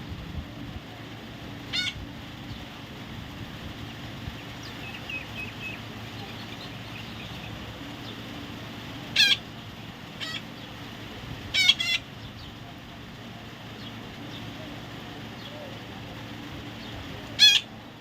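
A parrot giving short, harsh squawks: one about two seconds in, four close together between about nine and twelve seconds, and a loud one near the end, over a steady low hum.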